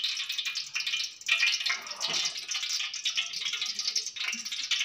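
Hot cooking oil in a steel kadai crackling with dense, irregular small pops: the oil has come up to heat for tempering.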